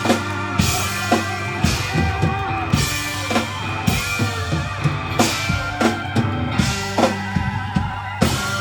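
Live country band playing an instrumental passage, the drum kit keeping a steady beat of about two hits a second under cymbal crashes and guitars.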